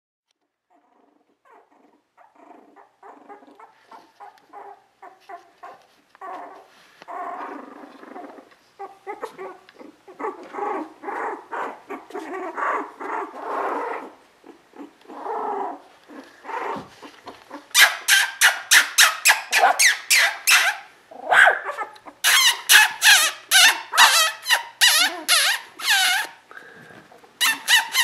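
Young Border Collie puppies crying: soft, short whimpers at first that grow louder and more frequent, then, about two-thirds of the way in, a run of loud, rapid, high-pitched squeals.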